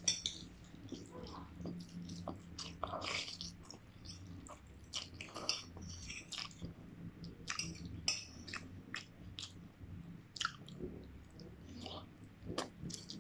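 A person chewing instant noodles close to the microphone: irregular wet mouth clicks and smacks throughout.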